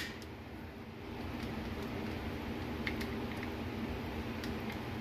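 A few light metallic clicks of a screwdriver prying at the rocker arms and lifters of a Ford 2.3 overhead-cam cylinder head, a pair of them about three seconds in, over a steady background hum.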